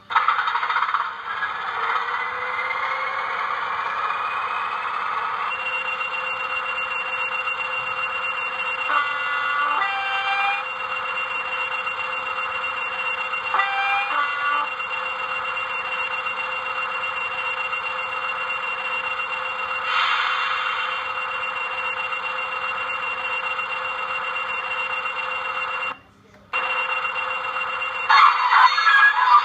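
Digitrax SFX sound decoder in a Lima class 20 model locomotive playing a recorded diesel engine through its small speaker. The engine starts up with a rising whine over the first few seconds, then runs steadily, with short horn blasts about ten and fourteen seconds in. The sound cuts out briefly near the end.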